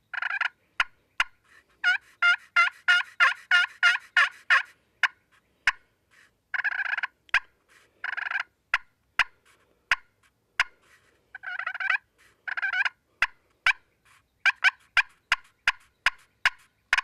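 Friction pot turkey call, a mesquite-wood Bama Hammer with a glass-covered synthetic soundboard, scratched with a wooden striker to imitate a hen turkey. A quick run of about ten yelps comes early on, then single sharp clucks and a few longer rattling purr-like notes are scattered through the rest.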